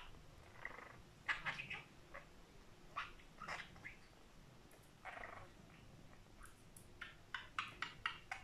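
Budgerigar making short chirps and clicking chatter in scattered bursts, with a quick run of them near the end.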